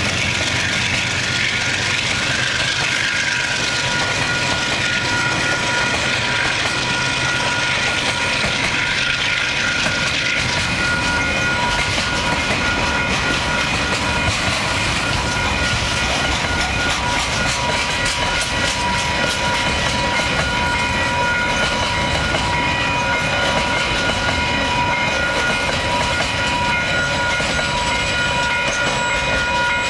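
Freight train wagons rolling past a level crossing, the wheels clicking over the rail joints. Over this, the crossing's warning bell rings without a break.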